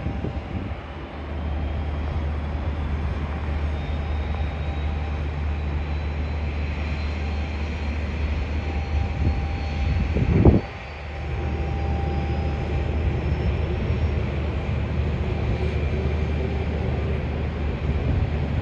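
Distant airliner jet engines running at low taxi power: a steady low rumble with a faint whine above it. A brief loud burst comes about halfway through, after which the rumble dips for a moment.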